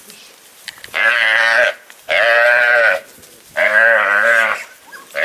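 Young zebu calf bawling repeatedly, caught and held on a lasso: three long calls about a second each, and a fourth starting near the end.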